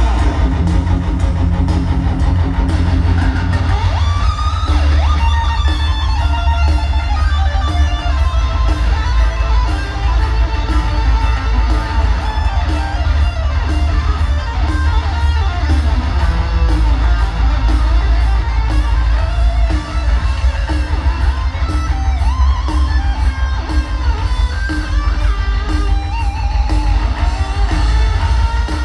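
Heavy metal played live by a band in an arena, heard from within the crowd: loud electric guitars over a heavy bass and a steady drum beat.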